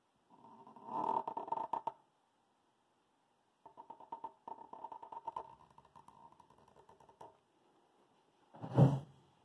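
Felt-tip Sharpie marker squeaking and scratching across paper in two spells of drawing strokes. Near the end comes one brief louder thump.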